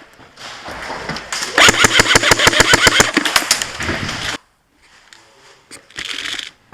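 Airsoft electric gun firing on full auto: a rapid clatter of about eleven shots a second, lasting about three seconds before cutting off sharply.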